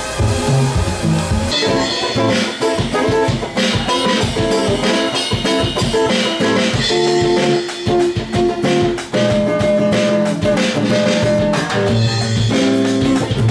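Acoustic guitar strummed with a drum kit playing along in a loose jam. Near the start, other music with a bass line gives way to the guitar and drums.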